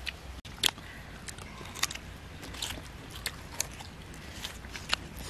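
Biting and chewing raw green guava: irregular crisp crunches, the loudest just under a second in.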